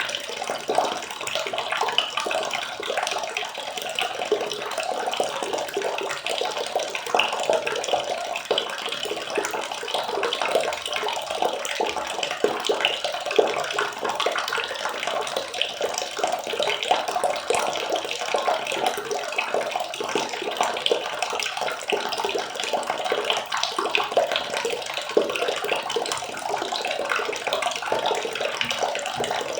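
Water running and splashing steadily, a continuous patter of many small splashes with no pauses.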